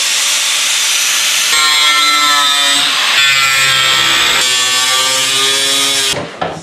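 Bosch 4.5-inch angle grinder cutting out a brace from a steel fender. It runs loud and continuously, its motor pitch sagging and recovering as the disc bites, then stops abruptly near the end.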